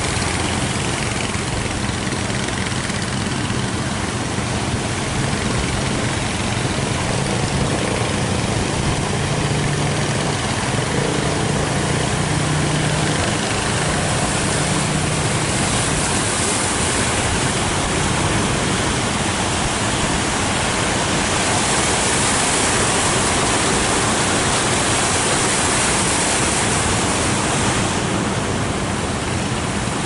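Steady rush of rough surf and wind with the drone of outrigger fishing boats' engines; a low engine hum stands out in the first half, and the surf hiss grows in the second half.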